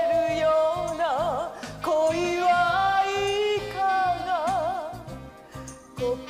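A woman singing a show tune with wide vibrato on held notes, over a band accompaniment with a steady beat in the bass. The voice stops about five seconds in.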